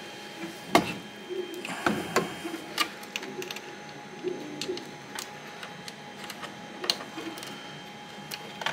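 Scattered clicks and knocks of metal and plastic parts being handled as a Creality Ender 2 Pro's upright gantry is fitted onto its base and bolts are set in place, with a sharp knock about a second in and a cluster of clicks about two seconds in.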